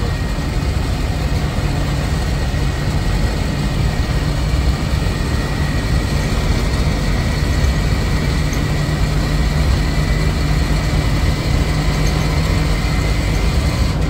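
Blue Bird Wanderlodge motorhome cruising at highway speed, heard from inside the cab: a steady low drone of engine and road noise with a faint high whine.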